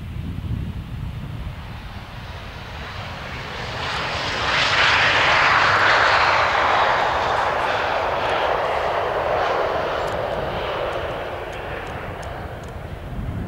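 Jet engine noise from an Airbus A318-111's CFM56 turbofans as the airliner rolls past close along the runway after touchdown. The noise swells sharply about four seconds in, with a faint high whine that falls slightly in pitch, then fades gradually.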